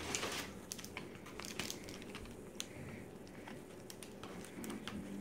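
Tissue paper and packaging rustling and crinkling as hands rummage in a box and lift out a wrapped item: irregular small crackles, busiest in the first half second, then sparser.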